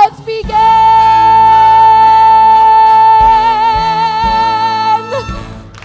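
A woman belting the long final high note of a musical-theatre song, held steady for about four and a half seconds with a little vibrato near the end, over sustained accompaniment chords; the note and band cut off together about five seconds in.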